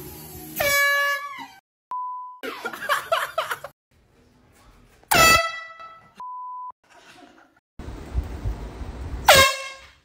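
Hand-held air horn blasted three times, each a loud blaring tone with many overtones: about a second long near the start, then two shorter blasts about five seconds in and near the end. Between the blasts come startled voices and two short steady beeps.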